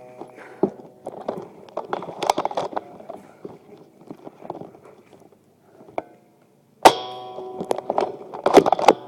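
A hard metallic clang about seven seconds in, which keeps ringing with several steady tones, among scattered sharp clicks and knocks; a quick cluster of knocks comes near the end.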